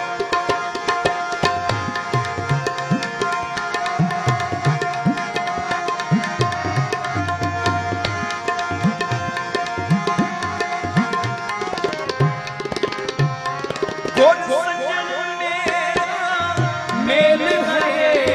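Harmonium and tabla playing a kirtan interlude: the harmonium holds a steady reed melody while the tabla keeps a rhythm with gliding bass strokes. A singing voice comes in over them near the end.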